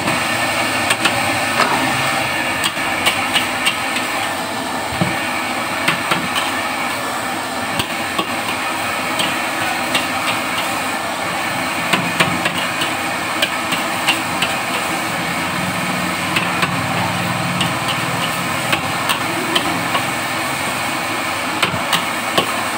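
Metal spatula clanking and scraping against a wok while a big batch of kwetiau goreng is stir-fried, with sharp irregular knocks, often a few in quick succession, over a steady frying hiss.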